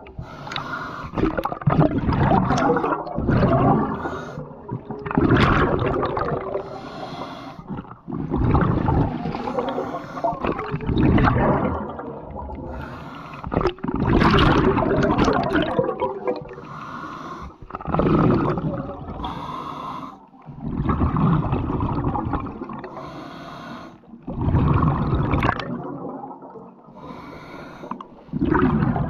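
Scuba diver breathing through a regulator underwater: repeated breaths every few seconds, each a hiss of air drawn through the demand valve followed by a gurgling rush of exhaled bubbles.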